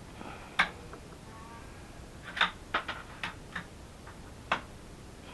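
A string of about seven short, sharp clicks: one about half a second in, five close together in the middle, and a last one near the end.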